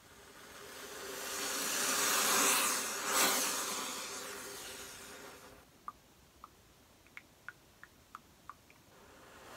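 A person imitating a sound effect with the mouth: a breathy rushing hiss swells up, peaks, and fades away over about five seconds. It is followed by a string of small irregular mouth pops, like drips, and near the end a second hiss begins to build.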